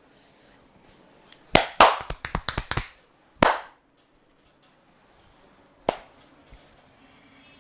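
Percussive massage strokes with the hands: a quick run of about eight sharp slaps, then two single slaps a couple of seconds apart.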